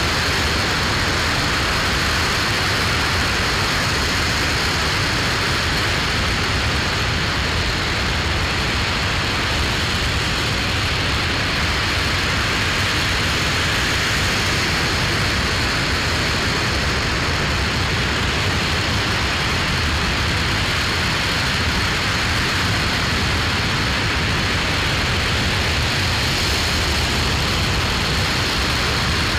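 Aerojet Rocketdyne RS-25 liquid-hydrogen/liquid-oxygen rocket engine firing steadily during a long-duration hot-fire test: a loud, continuous, even rush of exhaust noise that holds without change.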